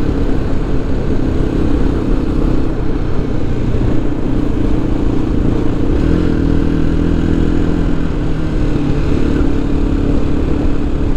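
Motorcycle engine running steadily while being ridden, its pitch shifting about six seconds in.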